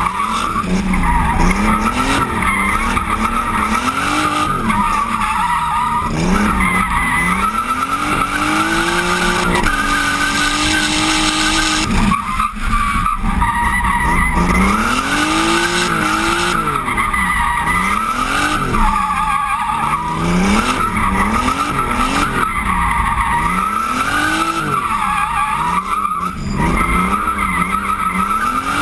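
BMW E36's engine revving up and down over and over as the car drifts, with its tyres squealing on the tarmac. The revs are held steady for a couple of seconds near the middle before the rises and falls resume.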